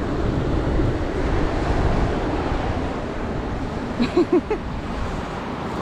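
Wind buffeting the camera microphone over the steady wash of surf on the beach, with a child's few short vocal sounds about four seconds in.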